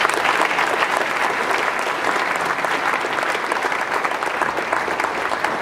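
Large audience of students applauding: dense, steady clapping.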